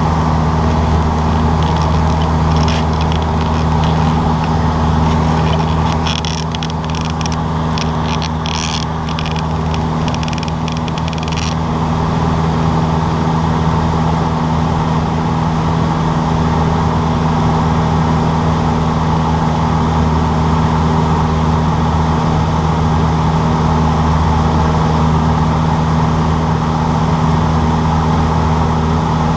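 Cessna 152's four-cylinder Lycoming engine and propeller running with a steady drone. A run of crackling clicks sounds from about six to eleven seconds in.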